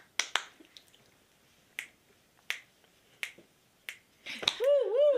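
A string of sharp finger snaps: a couple of loud ones at the start, then fainter single snaps a second or so apart. Near the end a person's voice comes in with a wavering, up-and-down hummed tone.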